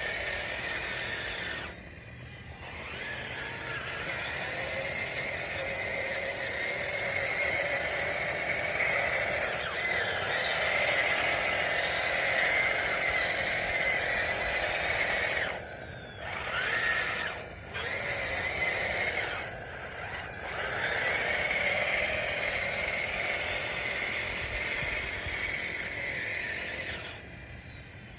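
Radio-controlled DXR2 crawler dozer working: its electric drive motors and gearboxes whine steadily as it moves on its wide tracks. The whine cuts out briefly about four times and resumes as the dozer stops and starts.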